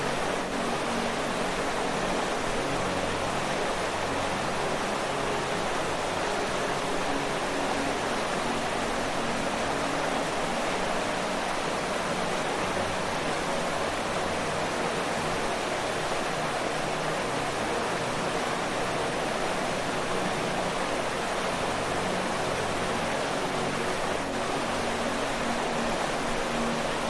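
Waterfall: falling water rushing and splashing in a steady, even roar of noise, with faint low gurgling tones underneath.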